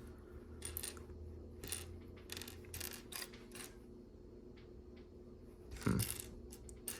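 Loose plastic LEGO bricks clicking and clattering as they are sorted through by hand to find a piece, in scattered light clicks with one louder clack near the end.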